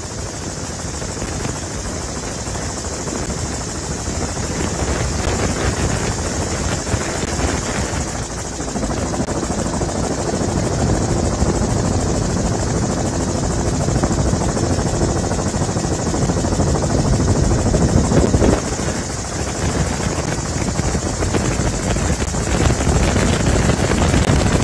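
Helicopter engine and rotor noise, a steady drone that grows gradually louder.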